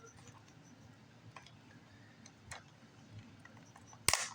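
Shipping packaging handled by hand: a few faint taps and clicks, then one short sharp crack near the end.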